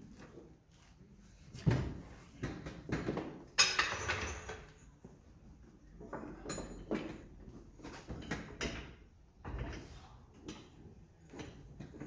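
Knocks, clunks and a scraping rattle as a part of a Polaris Ranger UTV is lifted and fitted by hand. The sharpest knock comes about two seconds in, a scrape of about a second follows near four seconds in, and a low thud comes near the ninth second.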